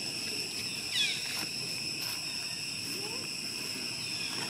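Steady high-pitched drone of insects, several steady pitches held at once, with a short high falling chirp about a second in and a few faint clicks.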